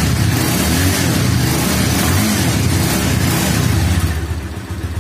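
Bajaj Avenger 220's single-cylinder engine running just after an electric start, on its first run after a full service and fresh engine oil. It runs loud and steady, then drops quieter about four seconds in as it settles toward a slow idle.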